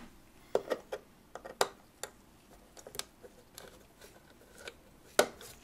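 Screwdriver turning out a small screw holding a clock dial: light, irregular metal clicks and scrapes, with a sharper click about five seconds in.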